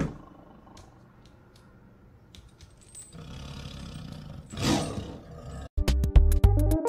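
A white tiger gives a short, loud, rasping roar about four and a half seconds in. Near the end, loud electronic music with a heavy drum-machine beat comes in.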